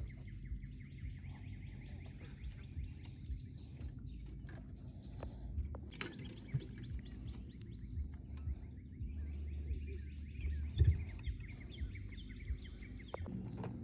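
Small birds chirping and calling repeatedly, with short high notes and quick trills, over a low steady rumble and a few light knocks.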